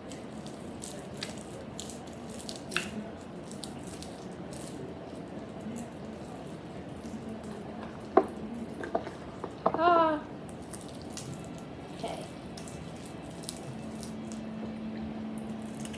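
Hands kneading sticky, activator-wet slime: soft wet squelching with scattered small sticky clicks and pops. Around eight to ten seconds in, a louder burst of squelching with a short squeak.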